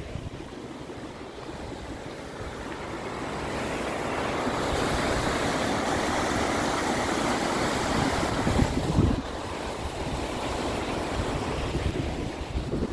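River water rushing over rocks and through rapids under a bridge, growing louder a few seconds in and dropping back about two-thirds of the way through. Wind buffets the microphone throughout.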